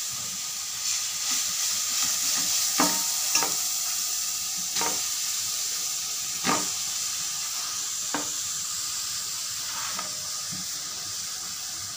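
Grated carrot sizzling in hot ghee in a metal pan, stirred with a slotted metal spoon that clicks and scrapes against the pan about every one and a half seconds.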